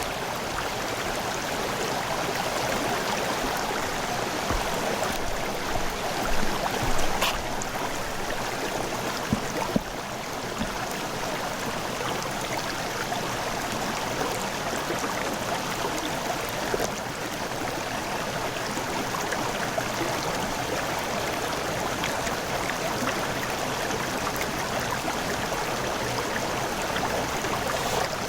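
River water rushing and gurgling steadily over rocks, with a few brief splashes about a quarter of the way in.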